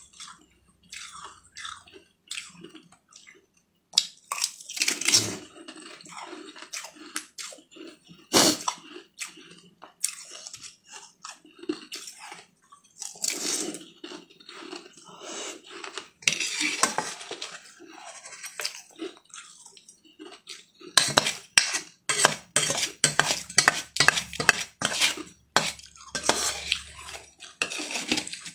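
A metal spoon clinks and scrapes against a steel bowl, mixed with crunchy chewing close to the microphone. It comes as a string of sharp clicks and short crunches, with a busy stretch near the end.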